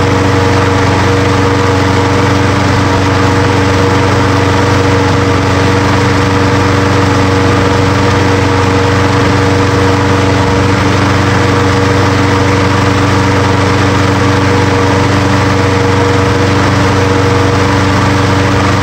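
Briggs & Stratton 6.75 hp single-cylinder engine on a Craftsman push mower running steadily at one constant speed, with no rise or fall in pitch.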